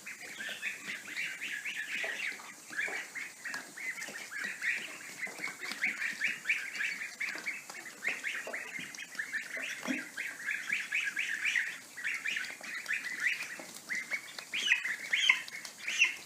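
A group of ducklings peeping steadily, many short high calls overlapping without a break.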